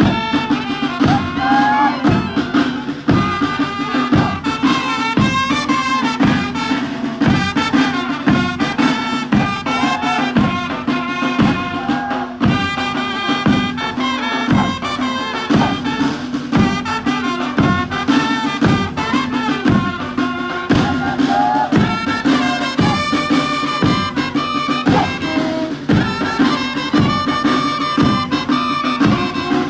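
Music with a steady, even beat over a held low drone and a shifting melody.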